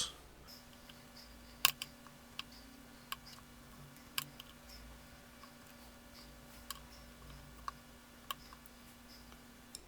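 Scattered sharp clicks and taps of a screwdriver working small metal screws, about eight of them spread irregularly, over a faint steady hum.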